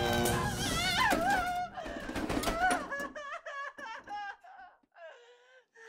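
A woman screams in a long, high wail over a low buzz, and both cut off together a little under two seconds in. After that she whimpers and sobs in short, high, wavering cries that grow fainter.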